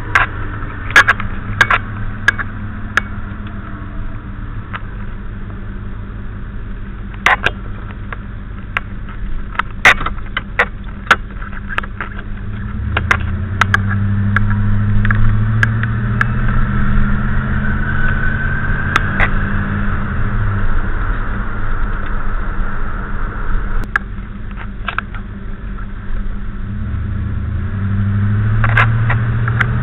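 1985 Chevrolet Monte Carlo SS's 305 V8 running and twice pulling harder, about twelve seconds in and near the end, with a high whine that rises in pitch along with the engine. The owner puts the whine down to the straight-cut first gear, which whines only in first. Scattered sharp clicks can be heard through the first half and near the end.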